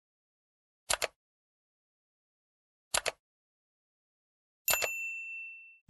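Mouse-click sound effects: three quick double clicks about two seconds apart. The last one sets off a short bell-like notification chime that rings and fades over about a second.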